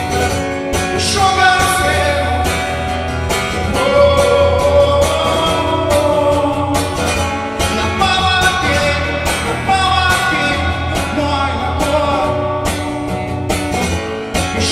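Live performance of a rock song with guitar, in an instrumental stretch between sung lines, carried by a continuous melody line.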